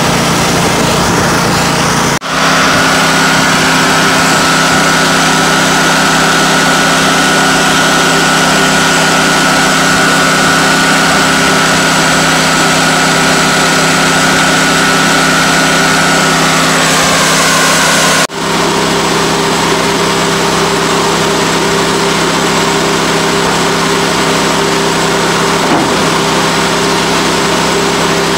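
Timberking 1600 portable band sawmill's engine running steadily and loud, with two sudden brief drops in level, about two seconds in and about eighteen seconds in. A steady higher whine rides over the engine until it sags in pitch just before the second drop.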